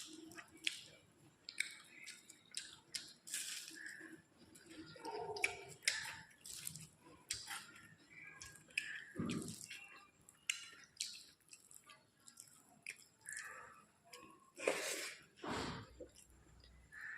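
Close-up eating sounds: a person chewing a rice-and-dal meal, with wet, squishy mouth sounds and frequent irregular smacking clicks.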